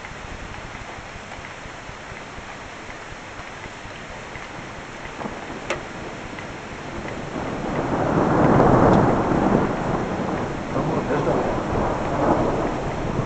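Thunder rolling over steady rain: a low rumble builds about halfway through, is loudest a little after that, then rolls on in a few swells before easing near the end.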